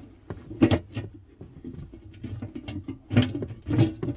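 Sharp plastic clicks and knocks of an electrical terminal cover and its surrounds being handled and lifted, a few separate strokes, loudest about half a second in and twice more near the end.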